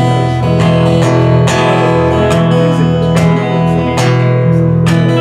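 Guitar-led band music: strummed guitar chords struck roughly once a second over a sustained low bass line.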